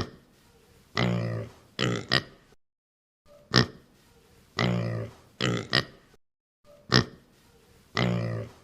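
Pig grunting and oinking. The same short run repeats three times: a sharp snort, then a longer low grunt and two quick grunts.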